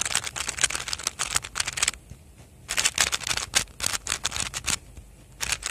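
Freshly lubed Weilong WR M 2019 3x3 speedcube turned fast for a sound test, its layers making rapid clicking turns. The turning comes in three runs with short pauses between them.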